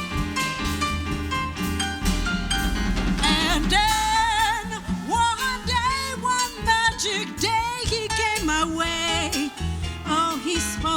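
Live jazz band playing a slow ballad. An instrumental passage gives way, about three seconds in, to a singer holding notes with vibrato over the band.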